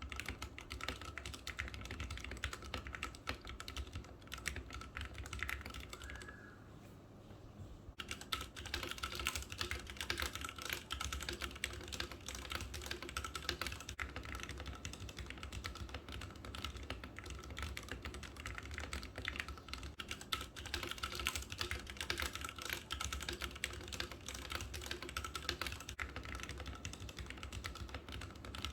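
Fast, continuous typing on a Ducky One 2 SF mechanical keyboard with Cherry MX Red linear switches, dense key clacks with a brief pause about six seconds in.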